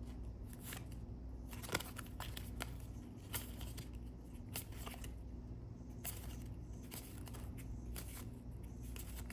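Cardstock trading cards being slid one by one off a small hand-held stack, making soft, irregular clicks and rustles.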